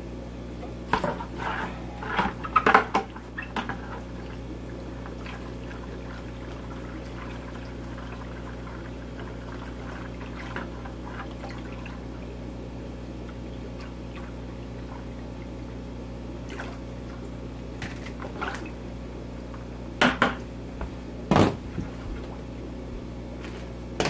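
Aquarium water siphoned through clear vinyl tubing and pouring into a plastic bucket of water, a steady trickle over a low equipment hum. There are louder splashes and knocks in the first few seconds and again near the end as the hose is moved.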